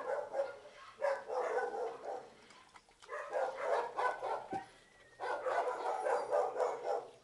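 Dogs barking in three stretches of rapid, repeated barks, with short quieter gaps between them.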